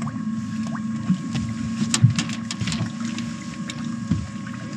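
Boat's outboard motor running steadily at trolling speed, a constant hum, with a cluster of sharp clicks about two seconds in.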